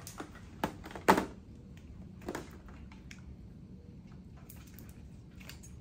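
A few short knocks and clicks from handling ECMO equipment while green oxygen tubing is fitted to the gas blender, the loudest about a second in, then quiet with a faint steady hum.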